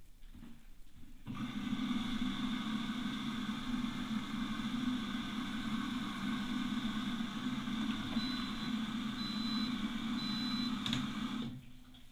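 Atlant washing machine's drain pump starts about a second in, runs with a steady hum for about ten seconds, then cuts off suddenly. The pump is jamming, the fault behind the failure to drain and the noise while draining. Three short high beeps sound near the end.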